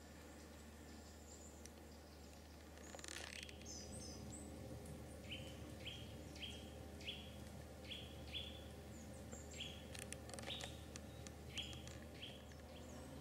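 Birds calling faintly in woodland: a series of short, falling chirps repeated about twice a second, with a few higher twittering notes.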